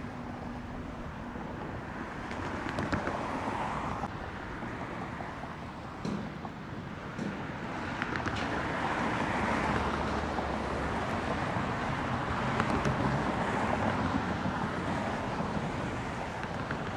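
Road traffic: cars passing in a steady wash that swells and fades a few times, with some wind buffeting the microphone.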